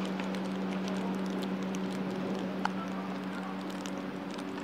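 Baseball practice-field ambience: a steady low hum with scattered faint taps and clicks, and one sharp knock a little past halfway through.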